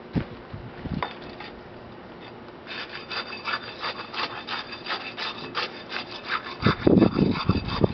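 Steel tamping rod plunged repeatedly into fresh concrete in an air meter bowl, a scraping stroke about three to four times a second, consolidating the layer to close the voids. The strokes grow louder near the end.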